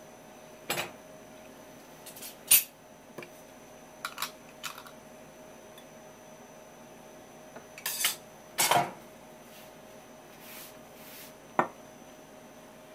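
Chopsticks and a porcelain plate clinking and knocking on a wooden cutting board: a handful of short, sharp clicks scattered through, the loudest about two and a half seconds in.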